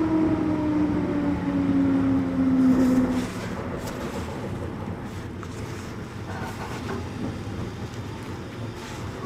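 Inside a JR 211 series 3000-number electric train car: the traction motor and gear whine falls steadily in pitch as the train slows, then cuts off about three seconds in. Quieter rolling noise follows, with a few faint clicks.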